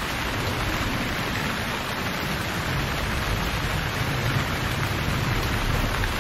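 Steady rain falling, a dense even hiss with no breaks.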